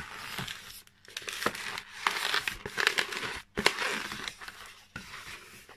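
Long latex modelling balloon being twisted and folded by hand: the rubber rubs against itself and the fingers in irregular short bursts, with brief pauses.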